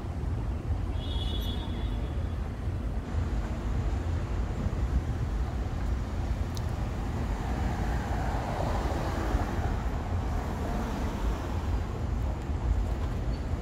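Steady city street traffic noise with a low rumble, swelling briefly about eight to ten seconds in. A short high beep sounds about a second in.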